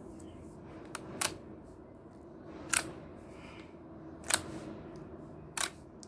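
Yellow clear slime being pressed and stretched, giving sharp popping clicks as air pockets burst, about one every second and a half.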